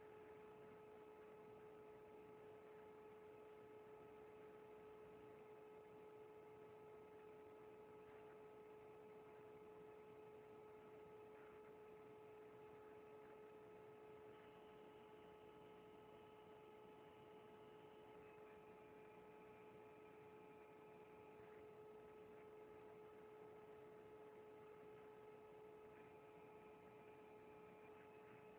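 Near silence with a steady electrical hum: one low tone with fainter higher tones above it. A faint high whine shifts pitch a few times in the second half.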